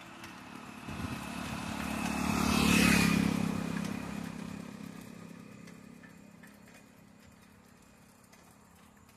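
A motor vehicle driving past. Its engine and tyre noise swell to a peak about three seconds in, then fade away over the next few seconds.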